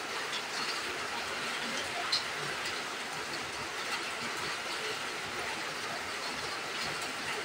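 Steady hiss of rain, with a few small clicks and smacks of someone eating with their hands.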